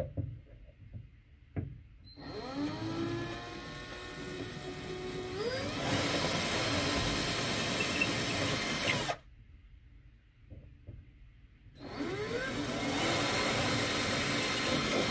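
Black+Decker power drill boring holes for drywall anchors through plaster-skinned drywall, in two runs. The motor whine rises as it spins up at the start of each run. The first run lasts about seven seconds and climbs again partway through; the second starts about three seconds before the end.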